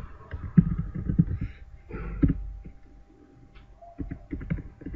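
Computer keyboard typing: a run of irregular key clicks, a pause of about a second and a half just before the end, then more keystrokes.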